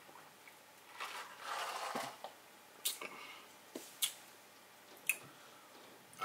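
Quiet mouth noises after a drink: a soft breathy exhale about a second in, then a few sharp, separate lip smacks and tongue clicks. A light knock about two seconds in as a plastic cup is set down on a table.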